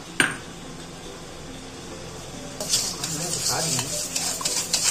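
A hand whisk beating raw eggs and sugar in a stainless steel bowl: a rapid run of scraping and clinking against the metal that starts about two and a half seconds in. A single sharp clink comes near the start.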